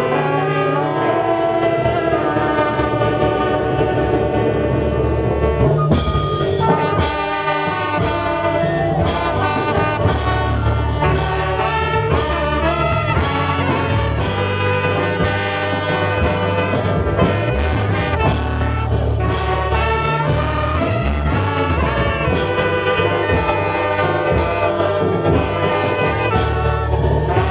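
Band music led by brass horns, trumpet and trombone. A strong percussive beat comes in about six seconds in and keeps a steady rhythm under the horns.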